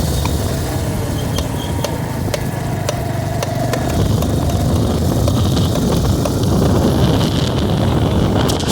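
DK160 motorcycle running, with scattered sharp clicks over the steady engine and wheel noise: the strange rear-wheel noise whose cause the owner does not know.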